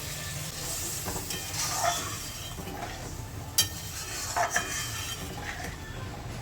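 Fried masala paste sizzling in a pan with a little water just added, a spatula stirring and scraping against the pan. There is a sharp clink about three and a half seconds in and a couple of knocks a second later.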